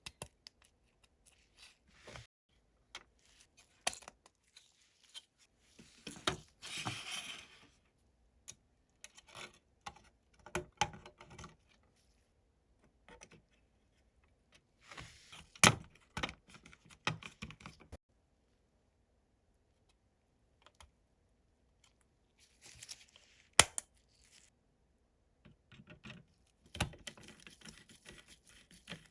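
Small objects being handled: scattered light clicks and taps, a short rustle about a quarter of the way in, and two sharper clicks, one near the middle and one later.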